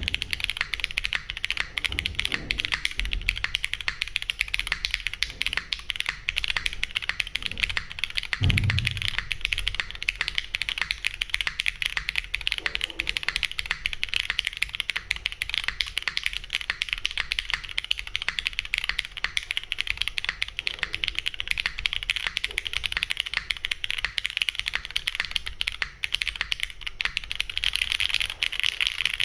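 Continuous fast typing on a custom mechanical keyboard with lubed, filmed Cherry MX Black linear switches on an aluminium plate, under GMK doubleshot keycaps: a dense stream of keystroke clacks, with an occasional deeper thud from a larger stabilised key.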